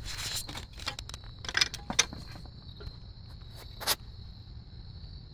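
A few sharp clicks and knocks, the loudest about two seconds in and just before four seconds, over steady cricket chirping.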